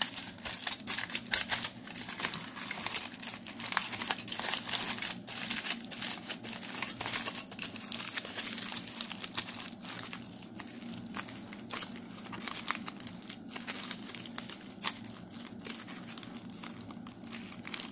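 Aluminium foil crinkling and crackling continuously in irregular bursts as hands crumple, wrap and squeeze it into a ball around a wire armature.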